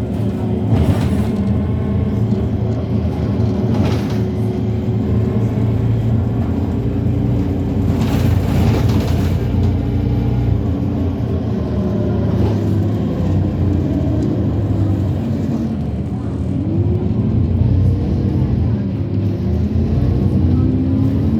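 Irisbus Citelis CNG city bus running, a steady low engine hum under a whine that falls and rises in pitch as the bus changes speed. A few short rattles or knocks come through, one about a second in, one about four seconds in and a longer one about eight seconds in.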